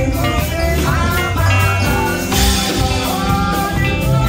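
Live Pentecostal praise music: a group of singers singing together into microphones, backed by keyboard and drums.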